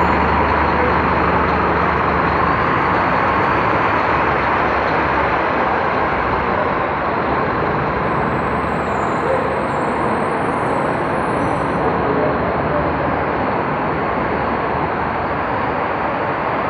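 City bus engine running as the bus pulls away, its low hum fading over the first few seconds. Then the steady noise of the bus terminal, with other buses running around it.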